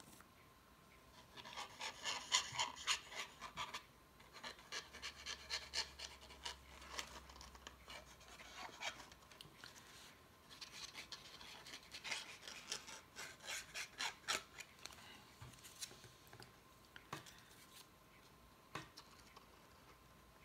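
Faint scratchy rubbing of cardstock on cardstock as fingers press and slide glued card panels into a small paper box, in several clusters of quick strokes with quiet gaps between.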